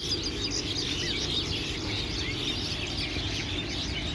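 Many small birds chirping and calling over one another in quick, overlapping notes, over a steady low rumbling noise.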